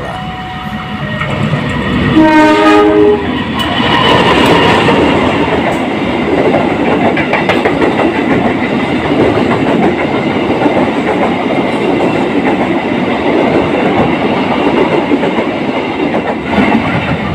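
Passenger train with a diesel locomotive passing through at speed: the locomotive sounds its horn in one blast of about a second, about two seconds in. Then the coaches go by with steady wheel-on-rail noise and clicking over the rail joints, which fades near the end.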